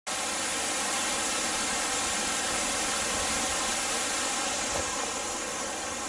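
Steady rush of the Bigăr waterfall, water pouring over mossy rock.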